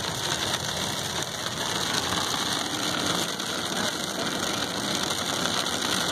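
Inside a moving car's cabin: a steady run of engine and tyre noise mixed with a dense patter of slushy hail hitting the roof and windshield.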